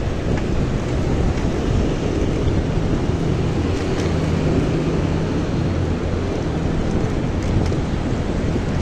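Wind rumbling steadily on the microphone of a moving bicycle. A low engine hum from a motor vehicle joins it between about three and seven seconds in.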